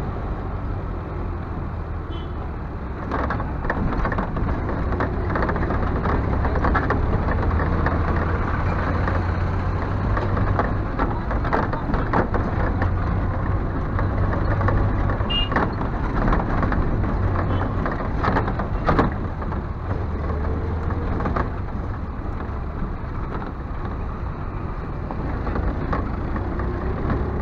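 A minibus engine running under way, a steady low rumble with scattered knocks and rattles. The engine pitch rises near the end.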